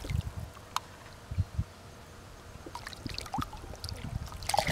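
Light splashing and trickling of water as a hooked largemouth bass is worked at the surface and brought in on the line, with a few soft knocks in the first second and a half.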